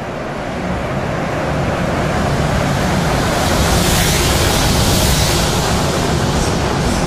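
EH500 electric freight locomotive and its string of tank wagons running through a covered station at speed: a building rush of rolling and air noise, loudest about four to five seconds in as the locomotive passes, then the steady roll of the tank wagons going by.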